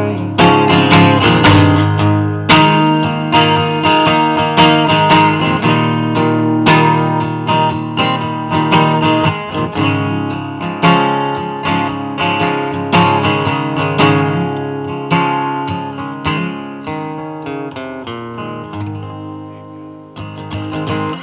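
Acoustic guitar playing the closing instrumental of a folk-country song, chords and single notes ringing out, growing steadily quieter toward the end.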